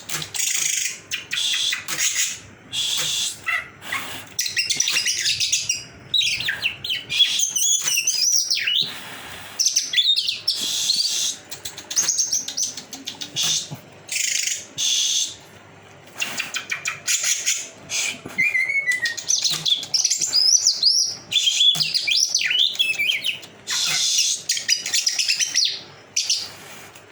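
Greater green leafbird singing a fast, varied, high-pitched song of chirps, whistles and trills, in phrases of a few seconds with short pauses between them.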